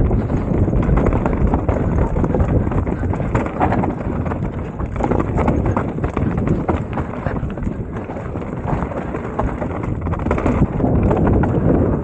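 Mountain bike riding over a rough trail: a dense, irregular run of knocks and rattles from the tyres hitting roots and stones and the bike shaking.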